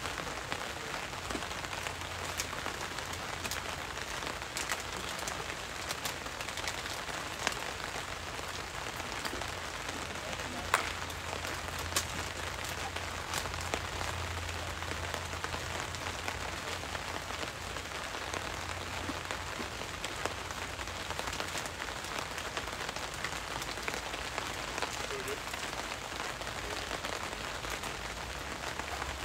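A steady, even hiss with scattered sharp ticks, a few of them louder than the rest.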